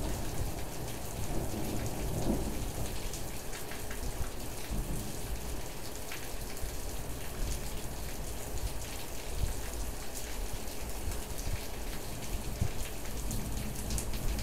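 Steady rain falling at night, with scattered sharp drop taps throughout and a low rumble of thunder between about one and three seconds in.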